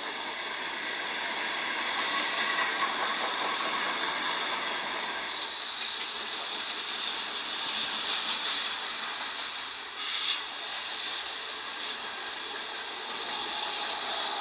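Freight train cars rolling over the rails, a steady rushing clatter with high wheel squeal and hiss, played back through a laptop's speaker with almost no bass. A short knock about ten seconds in.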